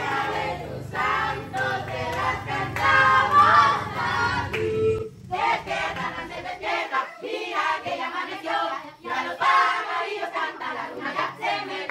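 A group of children and adults singing a birthday song together around the cake, with some hand clapping.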